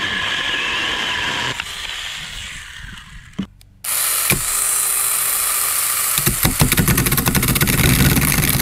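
Battery-powered Saker mini chainsaw running in a cut through a wooden board, its motor spinning down about one and a half seconds in. After a short break it runs again and from about six seconds in bites into schedule 40 PVC pipe with a rapid, dense clatter.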